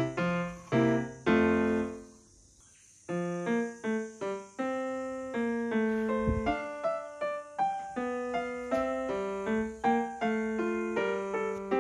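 Background piano music: a run of single struck notes, each fading away, breaking off for about a second around two seconds in and then carrying on.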